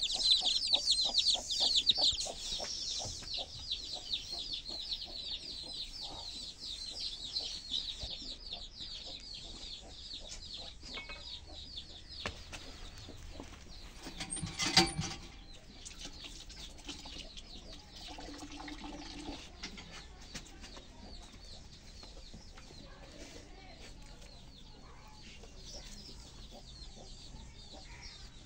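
Hand water pump worked by its lever, with rapid repeated squeaking and clanking strokes that are loudest at first and die away after about twelve seconds. A single sharp knock comes about halfway through, and faint bird chirping runs underneath.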